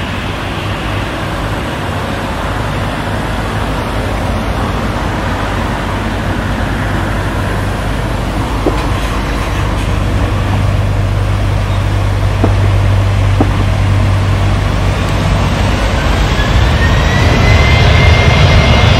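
Jet airliner engines, a rumble that grows steadily louder. Near the end a whine rises in pitch and then holds steady.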